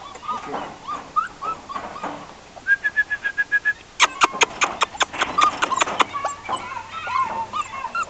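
Puppies whining and yipping in a run of short, high-pitched whimpers. Sharper, louder yelps crowd in from about halfway.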